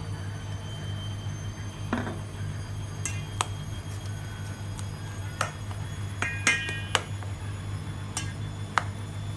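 A plastic rice paddle knocking and scraping against a stainless steel mixing bowl as rice and flaked fried mackerel are tossed together. It makes irregular light clinks, one ringing briefly about six and a half seconds in, over a steady low hum.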